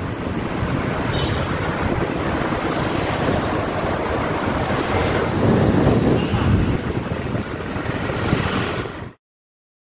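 Wind rushing over the microphone of a camera on a moving bicycle, mixed with road traffic around the rider, steady with a louder stretch a little past the middle. It cuts off suddenly about nine seconds in.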